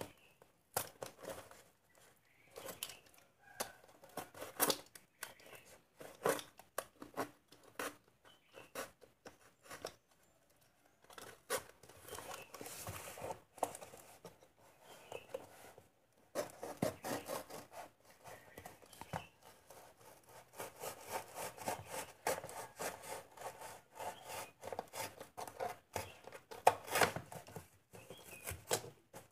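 A box cutter slicing through packing tape on a cardboard parcel, then cardboard flaps and tape being torn and pulled open by hand. The result is an irregular run of short scrapes and clicks, with longer stretches of ripping and rubbing cardboard.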